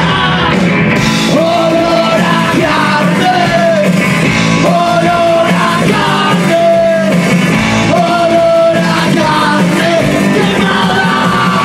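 Punkabilly rock band playing live and loud: electric guitar, bass and drums, with a male singer singing in repeated held phrases.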